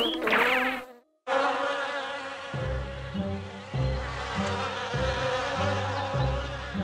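Cartoon bee buzzing sound effect, a steady buzz that sets in about a second in after a brief silence, over a plodding bass line of background music.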